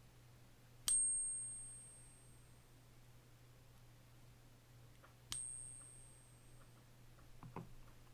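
A coin held in a Pocket Pinger coin tester is struck twice by the flicked striker, each ping a sharp tap followed by a single high, clear ring that fades over about a second and a half. A faint soft knock comes near the end.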